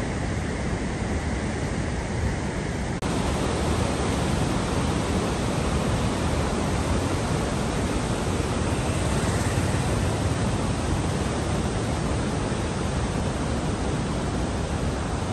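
Steady rush of a whitewater mountain river running over boulders. About three seconds in it changes abruptly to a louder, fuller rush.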